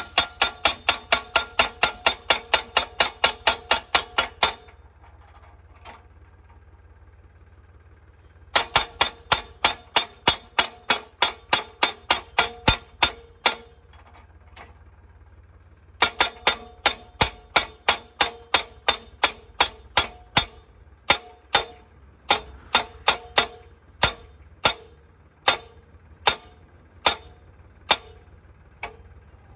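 Hydraulic post driver of a tractor-mounted crash-barrier machine hammering a steel guardrail post into the ground: rapid clanging metal blows, about four a second, in three runs with two short pauses. Near the end the blows come further apart.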